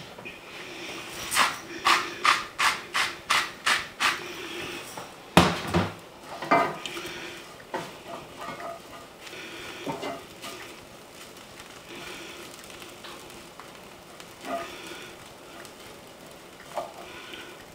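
A wooden spoon stirring and scraping breadcrumbs around a frying pan on the stove. Early on comes a quick run of about eight sharp strokes as salt and pepper go in, then a single loud knock a few seconds in.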